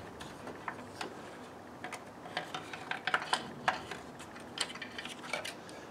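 Light, irregular clicks and knocks of a black plastic baffle plate being handled and pressed into place by hand, its teeth seating into notches on the engine.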